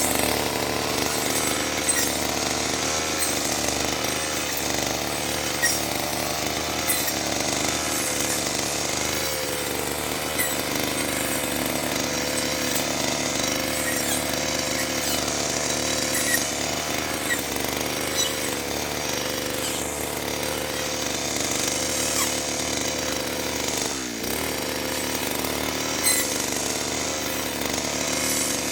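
Small petrol engine of a grass-cutting machine running continuously at high speed, its pitch wavering slightly as the load changes, with a brief drop near the end.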